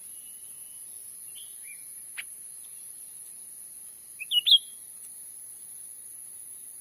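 Cucak ranting bird calls: a thin high whistle at the start, a couple of short notes, a sharp click at about two seconds, then a loud quick cluster of chirps a little after four seconds. A steady high-pitched insect hiss runs underneath.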